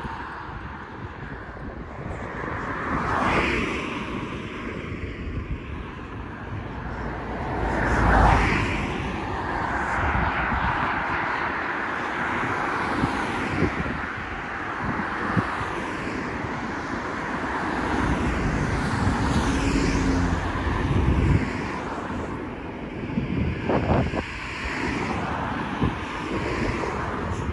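Road traffic on a 50 mph road: cars passing one after another, each a swelling and fading rush of tyre and engine noise, the loudest about eight seconds in, with wind buffeting the microphone.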